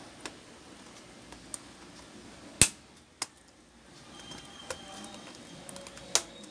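Sharp plastic clicks and snaps as a flat pry tool releases the retaining latches along the top edge of an Asus A52JE laptop keyboard. There are a handful of separate clicks, the loudest about two and a half seconds in and another strong one near the end.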